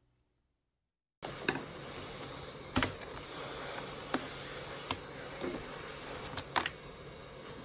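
Steady airy hiss of a hot-air heat gun blowing, starting about a second in, with four or five sharp clicks of a prying tool against the laptop keyboard's metal backing plate.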